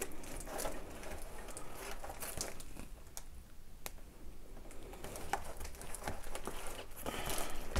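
Hands handling a large glossy packaged box, with faint crinkling and rustling and a few light clicks and taps as the fingers slide over it and grip its edge.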